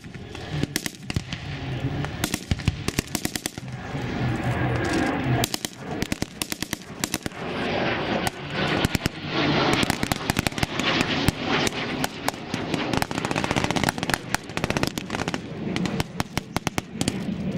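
Rapid bursts of machine-gun fire mixed with single rifle shots, going on without a break, with a low engine hum underneath.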